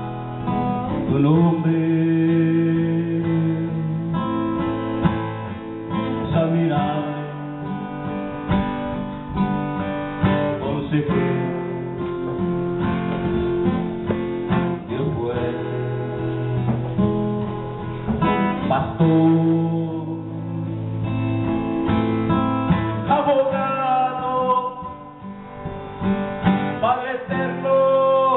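Acoustic guitar playing a slow worship song, with long held notes.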